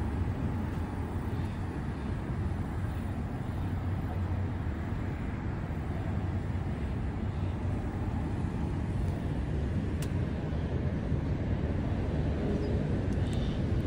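Steady low rumble of outdoor background noise, with a couple of faint clicks about ten seconds in and near the end.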